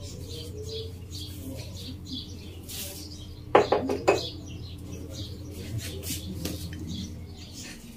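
Small birds chirping repeatedly over a steady low hum, with a short clatter of objects knocking together about three and a half seconds in.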